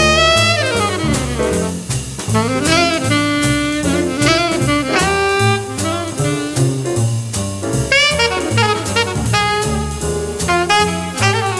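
Jazz recording: an alto saxophone plays a quick lead line with slides and bends over a moving bass line and drums with evenly spaced cymbal strokes.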